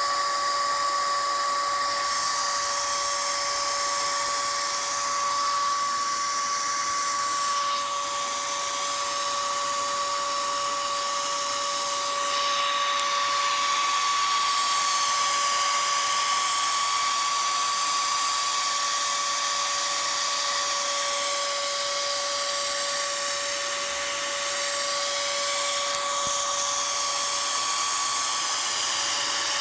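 Dell OptiPlex GX280's CPU fan running flat out, a steady loud whine over a rushing hiss, like a jet. The fan is stuck at full speed from power-on with no display, a fault that persists with only the power supply connected to the motherboard.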